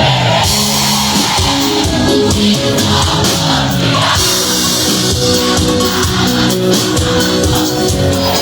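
Live band playing an instrumental passage between the vocal lines of a sertanejo song: guitar and bass notes over a drum kit beat, no singing.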